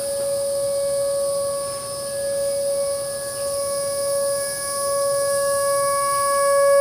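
Whelen Vortex electronic civil-defense siren sounding a steady alert tone: one held pitch with overtones, gently swelling and fading in loudness as the rotating siren turns.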